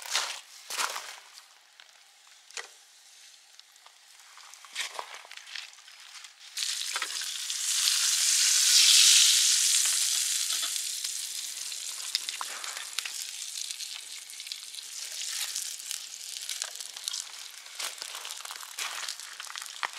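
Floured brook trout going into hot olive oil in a frying pan over a campfire: a few scattered knocks and clicks, then a sudden loud sizzle about six seconds in that peaks a couple of seconds later and settles into a steady, crackling fry.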